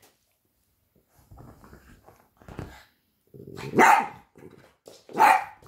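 French bulldog puppy playing: low rumbling growls, then two sharp barks, the first about four seconds in and the second just over a second later.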